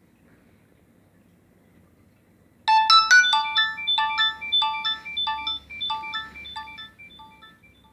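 Nokia 6300 mobile phone playing a ringtone: a melody of bright electronic notes starts suddenly a few seconds in and grows fainter until it stops near the end.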